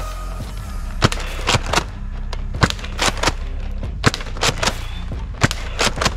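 About a dozen sharp shots from a foam dart blaster, irregularly spaced with several in quick pairs, over background music with a steady low drone.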